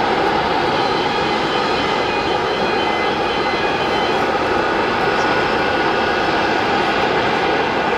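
Jet engines of taxiing airliners, the Airbus A380 nearest, running steadily at low taxi power. The sound is an even rush with faint thin high whines above it.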